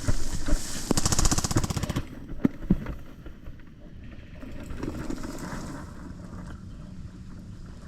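Airsoft rifle firing a rapid full-auto burst of about a second, followed by a couple of single shots.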